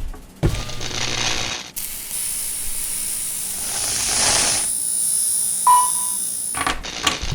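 A string of foley sound effects edited one after another: mechanical clicks, a long stretch of hiss, and a short beep about two thirds of the way in.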